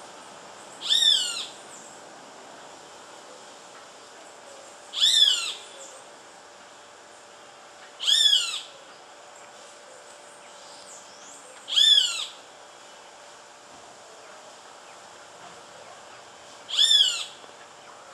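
Young roadside hawk screaming five times, a few seconds apart: loud, harsh calls of about half a second each that slide down in pitch.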